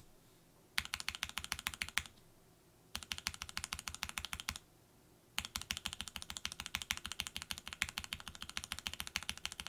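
Rapid typing on a mechanical keyboard fitted with a lubed frankenswitch, a BOX Cream stem in a regular Kailh BOX housing, mounted on an aluminium plate with a tape mod under ABS keycaps. It comes in three bursts of quick keystrokes, the last and longest starting about halfway through.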